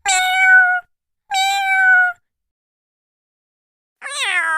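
Domestic cat meowing: two short meows of steady pitch in quick succession, then after a pause of about two seconds a longer meow that falls in pitch near the end.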